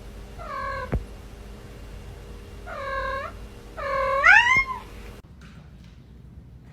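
A cat meowing three times, the third call longer and rising in pitch at its end.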